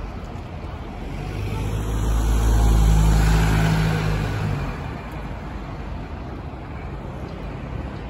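A London black taxi driving past close by, its engine hum and tyre noise swelling and then fading over about three seconds, loudest about three seconds in, over steady city traffic noise.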